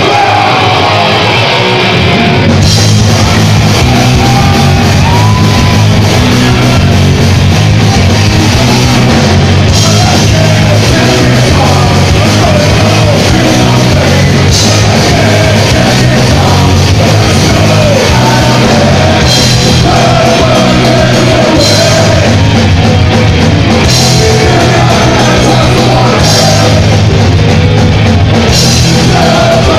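Hardcore punk band playing live at full volume: distorted electric guitars, bass guitar and drum kit, with a shouted lead vocal. About two and a half seconds in the full band comes in, cymbals and all, and it gets a little louder.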